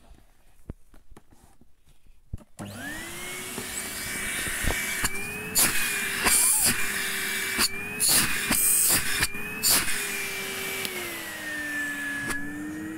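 Numatic NRV 200 tub vacuum cleaner switched on about two and a half seconds in, its motor spinning up quickly to a steady whine. Between about five and ten seconds the pitch lifts a little and gusts of rushing air come and go, as a hand covers and uncovers the open hose inlet. The whine drops in pitch near the end.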